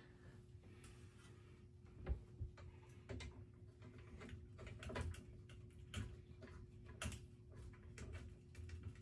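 Irregular light clicks and knocks of screws, blade irons and a screwdriver being handled while ceiling fan blades are attached, over a faint steady hum.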